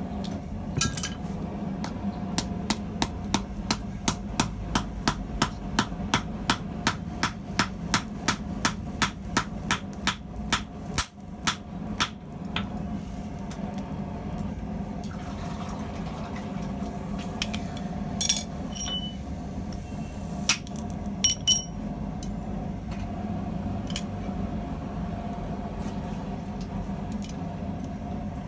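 A hand hammer heading a steel rivet: a steady run of about three dozen ringing blows, roughly three a second, for about eleven seconds. Then a few scattered metal clinks over a steady low hum.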